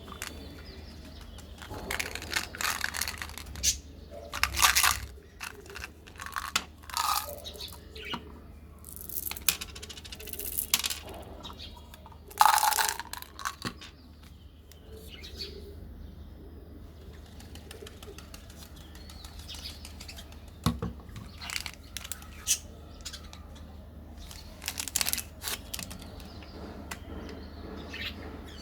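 Close-miked ASMR eating and food-handling sounds: irregular bursts of crinkling, biting and chewing, with a quieter stretch about midway.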